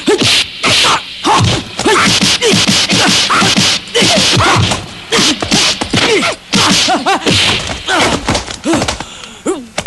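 Kung fu film fight sound effects: a fast, steady run of punch and kick whacks and swishing whooshes, mixed with short shouts and grunts from the fighters. The blows thin out near the end.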